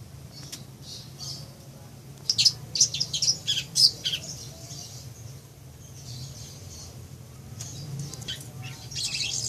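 Long-tailed shrike (cendet) singing, a run of rapid, harsh high notes about two seconds in that lasts close to two seconds, with more scattered notes near the end.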